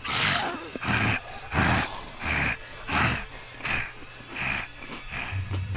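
A person's heavy, rapid breathing: about eight hard breaths in a steady rhythm that slowly fade.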